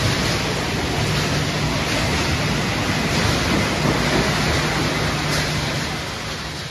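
Machinery of a refrigerator crushing and sorting line running: an even, steady noise with a low hum underneath, starting to fade near the end.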